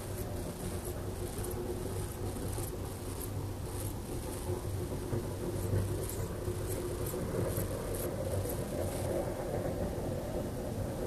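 A low, continuous rumble with a steady deep hum, growing a little fuller in the second half. It is the unexplained rumbling from the sky that the recorder reports, with no traffic, trains or aircraft nearby.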